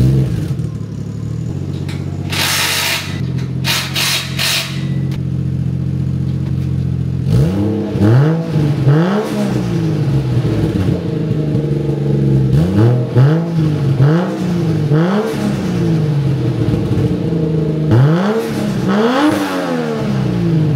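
Toyota 1JZ inline-six engine idling through a 3-inch exhaust with a muffler, then blipped in a series of quick revs from about seven seconds in, with a raspy tone. A few short noisy bursts sound between about two and five seconds in. The owner suspects the exhaust is still leaking a little at the V-band clamp.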